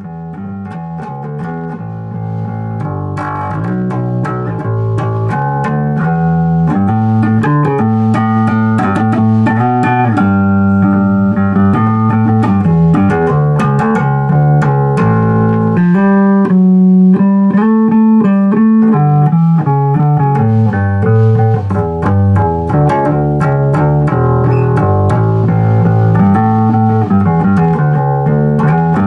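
Fender Precision Bass with a maple neck played fingerstyle: a bass line of changing plucked notes, fading in over the first few seconds.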